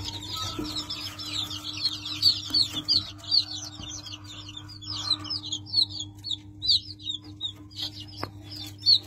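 A brood of young chicks peeping non-stop, many short high cheeps overlapping, over a steady low hum. A single sharp click sounds about eight seconds in.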